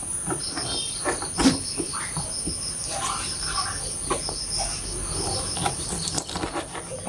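Crickets chirping steadily in the background, with scattered knocks and clicks of a knife cutting raw chicken into pieces on a board, the loudest knock about one and a half seconds in.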